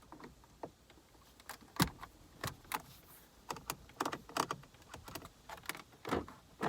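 Irregular plastic clicks and knocks from an HVAC control knob being handled and pushed onto its dial, with a sharper knock about two seconds in.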